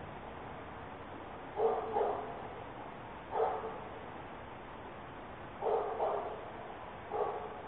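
A dog barking at night, about six barks in ones and twos a second or two apart. It is picked up faintly by a porch security camera's microphone over a steady hiss.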